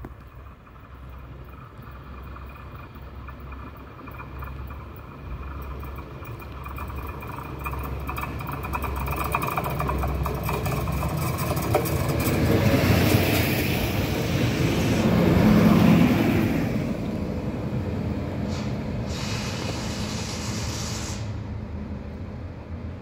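DB class 632 diesel multiple unit approaching and passing close by. Its engine hum and wheel-on-rail noise grow louder to a peak about two-thirds of the way through, then fade as it runs on along the platform.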